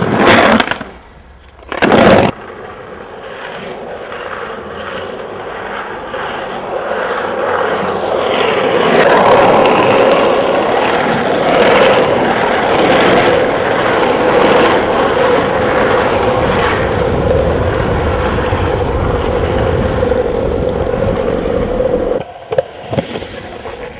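Skateboard wheels rolling fast and steadily over pavement with a continuous scraping rumble and a steady hum, after a couple of loud knocks in the first two seconds. The rolling stops abruptly near the end.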